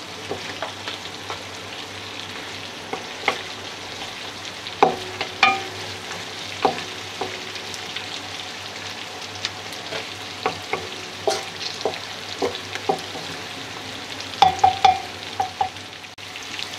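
Mutton pieces sizzling as they fry in their own rendered fat in a metal karahi, with a wooden spoon stirring and knocking against the pan at irregular moments, the pan ringing briefly after some of the harder knocks.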